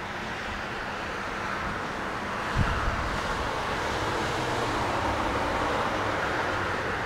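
Steady outdoor road-traffic noise that swells a little about halfway through, with gusts of wind buffeting the microphone and one brief low thump about two and a half seconds in.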